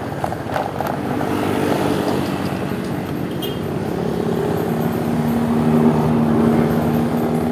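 Motor vehicle engines running close by in road traffic, with a steady engine hum that grows louder a few seconds in.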